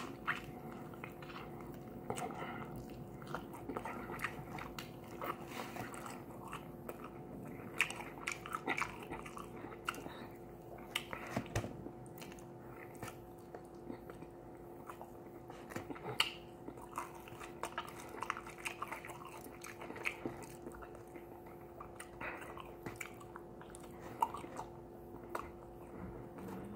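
A person biting into and chewing crispy glazed Korean-style fried chicken wings, with scattered short crunches and wet mouth clicks, over a faint steady hum.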